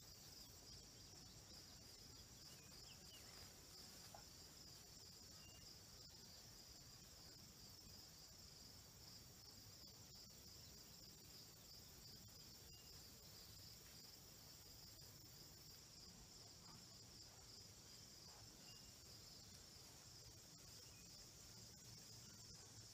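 Faint, steady high-pitched chorus of field insects such as crickets, with no other sound standing out.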